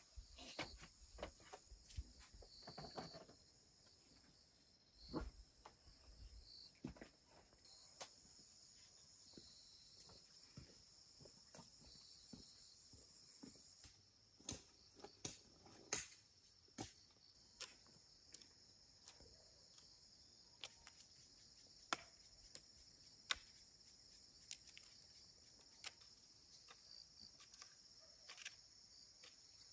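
Faint steady high-pitched chirring of crickets, with scattered sharp clicks and taps at irregular intervals.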